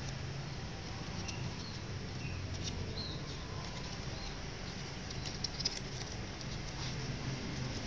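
Faint crinkling and rustling of paper as a folded paper cat is pinched and shaped by hand, with a couple of sharper crinkles about five and a half seconds in, over a steady low hum.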